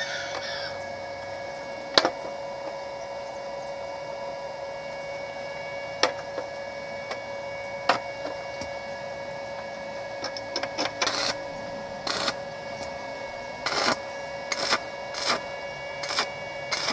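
Arc welding: a run of short bursts as the welder strikes brief tack welds in the second half, over a steady hum. A few single sharp metal clicks come earlier.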